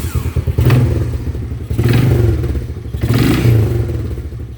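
Arctic Cat 340 snowmobile's two-stroke engine running just after a cold start, uneven and surging about once a second while it warms up.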